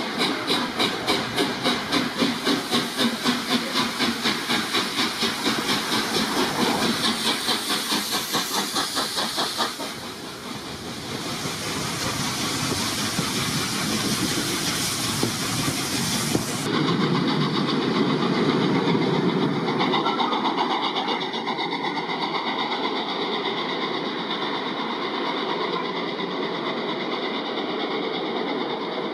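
The three-cylinder exhaust of A1 Pacific 60163 Tornado beats rapidly and regularly as the engine works its train past. The beats fade after about ten seconds, leaving the steady rolling noise of the passing coaches. This changes abruptly part-way through to a steady running noise of the train.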